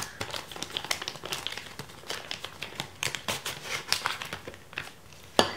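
Plastic sleeve crinkling as hands handle and unwrap a large-format camera lens board, with irregular small clicks and one sharp knock near the end.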